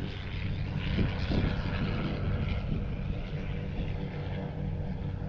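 Electric motor and propeller of a Flyzone Eluna RC power glider, a steady buzzing drone as it flies under power, with wind gusting on the microphone.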